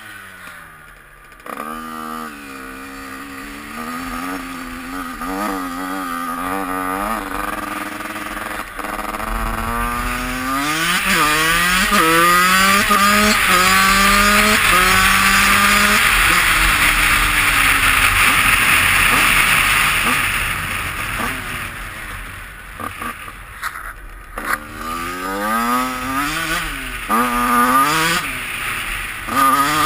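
2003 Yamaha YZ85's two-stroke single-cylinder engine under way, revving up and shifting through the gears. It holds at high revs for several seconds in the middle, then eases off, and gives a series of quick throttle rises and drops near the end.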